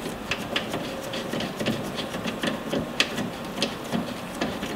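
Irregular light clicks and rustles of gloved hands handling small steel steering parts, fitting a clevis onto a threaded steering stud.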